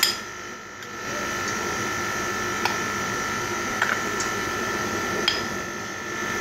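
Flour being stirred in a glass bowl, with a few light clinks against the glass over a steady mechanical hum.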